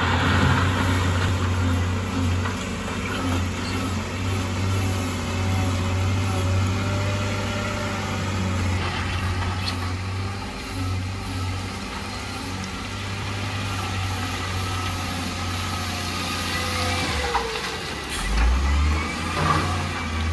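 Heavy diesel construction machinery running steadily with a deep engine hum, the engine speed changing near the end.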